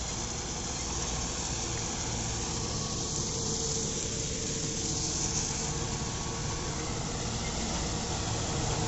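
Sonalika Sikander RX 50 tractor engine running steadily under load, driving a Dashmesh 517 straw reaper through the PTO; the reaper's cutter, drum and blower add a broad steady hiss over the engine's hum. The tractor is set at about 1600 rpm.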